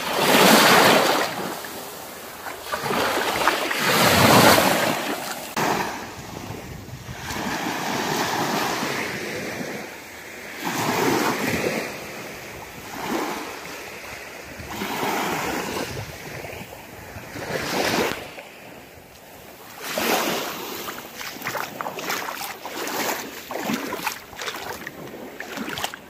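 Small sea waves washing onto a sandy shore, rising and falling in repeated swells, with wind buffeting the microphone.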